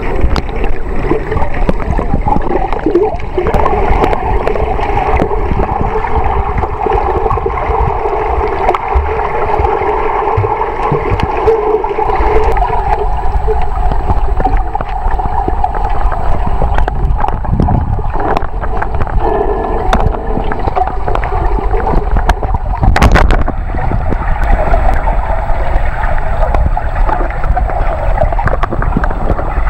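Water sloshing and gurgling around a camera held at the surface while snorkelling, partly muffled as it dips under, with many small splashes and a louder splash about 23 seconds in.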